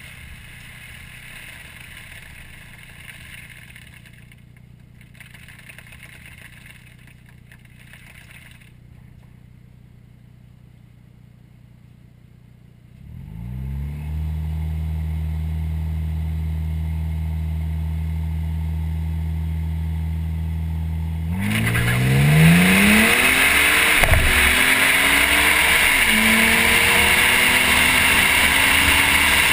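2011 Ford Flex EcoBoost's twin-turbo 3.5-litre V6 and exhaust, heard from under the car. It runs quietly at first, then a little under halfway through the engine note climbs and holds steady at raised revs. About two-thirds of the way in the car launches: the engine pitch climbs hard, dips briefly at each upshift, and loud road and wind noise sets in.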